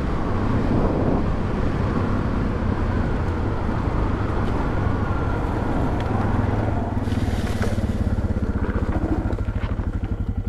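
Suzuki DR650's single-cylinder four-stroke engine running under way on a loose dirt track, with a steady rush of noise over it and a brief hiss about seven seconds in. Near the end the revs drop and the engine's separate firing beats become distinct.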